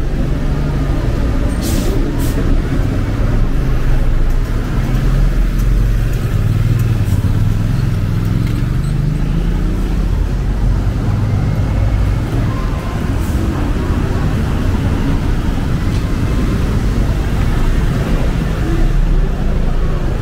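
Road traffic close by: the engines of a city bus, cars and a motor scooter running and passing in a steady low rumble, with one engine rising in pitch about eight to ten seconds in.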